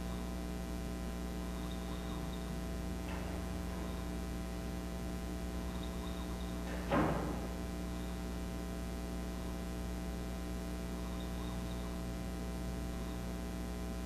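Steady electrical hum made of many even, unchanging tones, with a single brief thump about seven seconds in.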